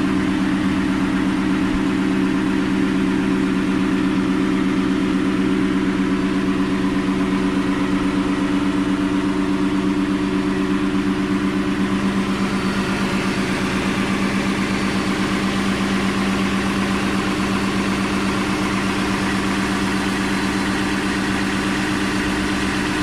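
Ford F150's 5.0 V8 with a Corsa exhaust idling steadily.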